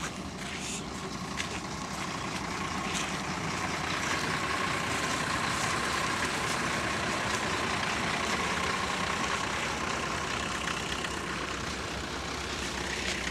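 A heavy truck's engine running steadily close by, with a steady whine that grows louder a few seconds in and fades near the end.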